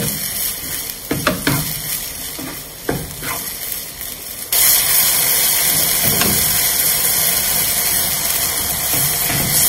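Minced chicken frying in oil in a non-stick wok, sizzling, while a wooden spatula scrapes and pushes it around the pan in several short strokes. About halfway through, the hiss suddenly gets louder and stays steady.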